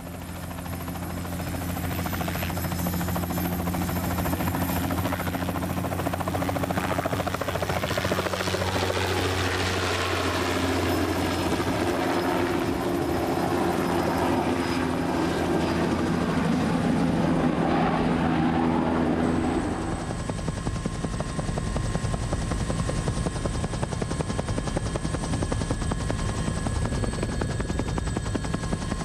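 Light helicopter running, its engine and rotor rising in level over the first couple of seconds. About twenty seconds in, the sound changes to a steadier, bass-heavy drone heard from inside the cabin.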